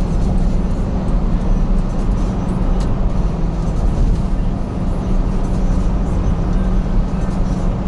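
Car interior noise while driving at a steady speed: an even engine and tyre drone with a constant low hum.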